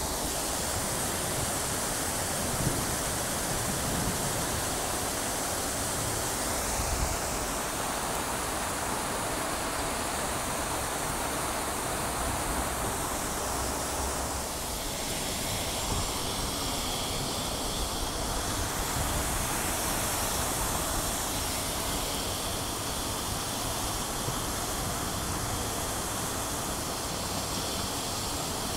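Fountain water jets splashing continuously into the basin: a steady rushing hiss of falling water.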